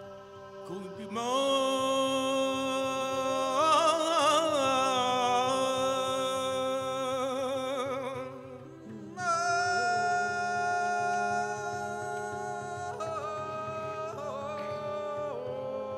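A man singing two long, held improvised vocal phrases over a steady low drone. The pitch wavers in ornamented runs partway through the first phrase, and there is a short break before the second.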